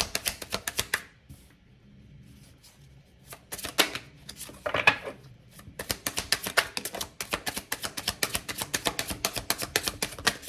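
A tarot deck being shuffled by hand: quick runs of card-on-card slaps, about eight to ten a second. They stop about a second in and start again, densest and longest in the second half.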